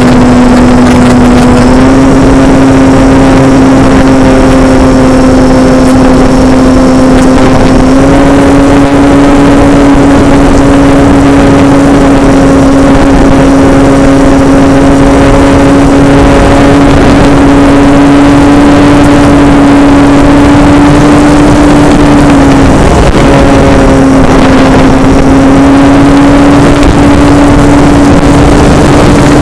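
Model airplane's motor and propeller running steadily at cruise with a loud, even hum over rushing air noise. The pitch steps up slightly twice in the first third and dips briefly about three-quarters of the way through with throttle changes.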